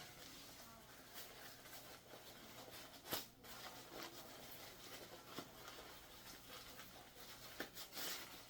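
Faint rustling and handling noises of gear being handled, with a sharper click about three seconds in and another near the end.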